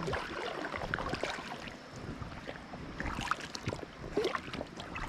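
Shallow creek water sloshing and splashing, with scattered small clicks, knocks and rustles.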